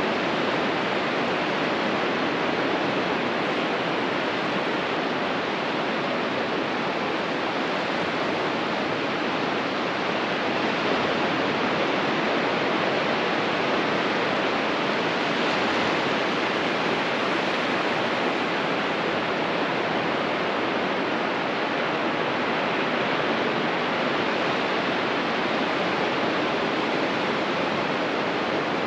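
Ocean surf breaking on a beach: a steady, even rush of noise with no single wave crash standing out.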